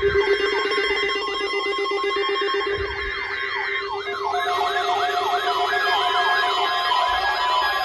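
Several electronic alarm tones sounding at once: steady tones under repeating rising-and-falling siren-like sweeps. About four seconds in, the sweeps become faster and more crowded, at about three a second.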